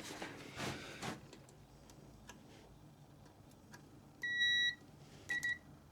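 Multimeter continuity tester beeping: one steady, high beep of about half a second, then two short beeps near the end. The beep shows a closed circuit across two ignition-switch terminals with the key off, the kill circuit grounding out as it should.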